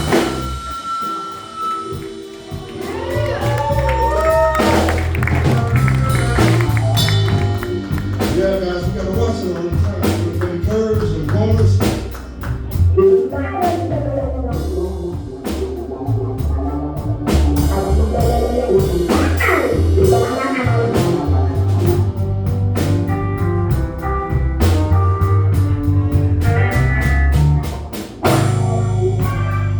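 Live blues band playing a slow blues: electric guitar lead with bent, sustained notes over bass guitar and drums.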